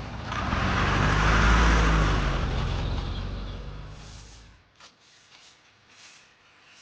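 A motor vehicle passes by. Its engine hum and road noise swell to a peak about a second and a half in, then fade away over the next three seconds, leaving a few faint clicks near the end.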